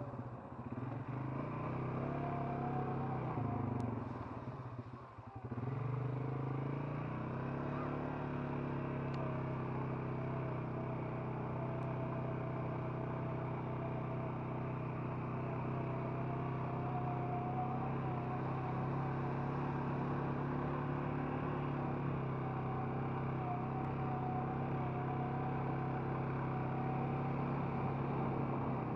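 Four-wheeler (ATV) engine running as it is ridden, heard close up. Its sound dips briefly about a second in and again around five seconds, then holds a steady cruising note.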